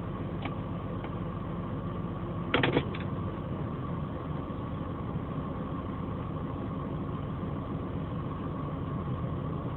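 BMW 528i engine idling steadily with a steady high tone running over it, the noise that appeared after a minor collision. About two and a half seconds in there is a quick cluster of three or four sharp clicks.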